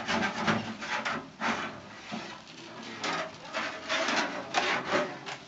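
Metal spatula scraping a rusty baking tray in quick, repeated strokes, coming in rapid bursts with a lull in the middle; the rust is being scraped off the tray.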